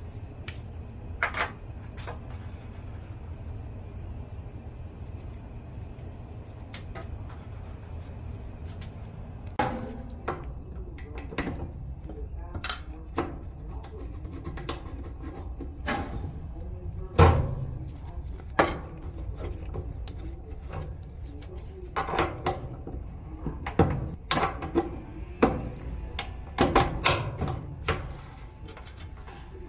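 Irregular knocks and clatters of dryer parts being handled during maintenance on a Whirlpool Duet dryer, over a steady low hum. The knocks start about a third of the way in and come thickest near the end, the loudest a little past halfway.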